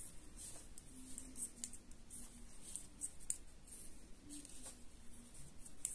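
Knitting needles clicking lightly and irregularly as knit stitches are worked.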